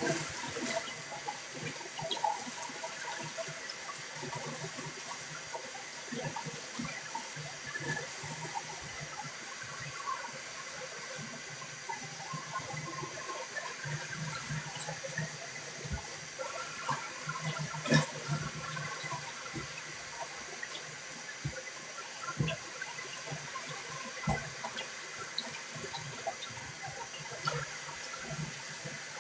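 Water running steadily, with scattered knocks and clicks throughout.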